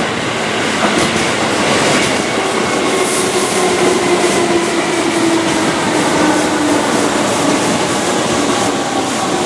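Keihan 1000-series electric train running past close by, wheels rolling over the rail joints, with a faint whine that slowly drops in pitch.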